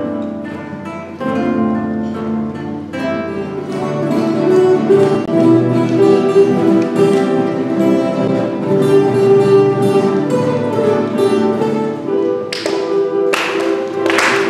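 Acoustic guitars playing: a few guitars picking single notes, then a fuller ensemble of classical guitars sounding held chords. Applause breaks out near the end as the piece closes.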